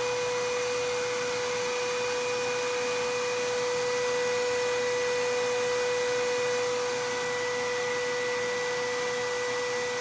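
A Tesla coil's high-voltage hairpin rig runs a small microwave-oven AC fan motor, which spins steadily. Together they make a constant high-pitched whine over a steady hiss.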